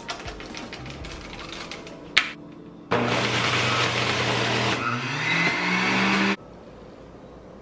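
Electric centrifugal juicer motor starts suddenly about three seconds in and runs loudly for about three and a half seconds as blueberries are pushed down its feed chute. A steady motor hum with spinning noise, its pitch climbing shortly before it cuts off suddenly.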